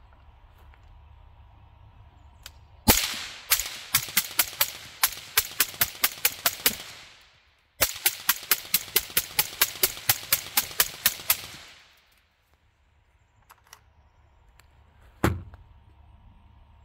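Suppressed AR-15 rifle with a Rex Silentium MGX suppressor firing two long strings of rapid semi-automatic shots, about four to five a second, with a short pause between, as the suppressor is run hot. A single sharp knock comes a few seconds after the firing stops.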